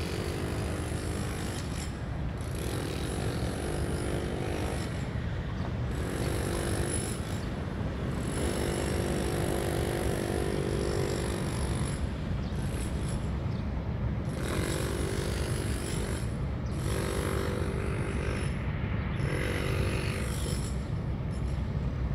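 Wind rumbling on the microphone at a harbour, with a steady low rumble. A droning hum rises and falls in stretches of a second or two.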